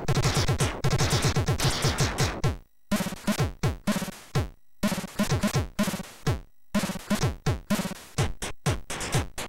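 Commodore 64 SID chip music: a fast run of drum hits that drop quickly in pitch, then from about three seconds in a choppier beat broken by several short gaps.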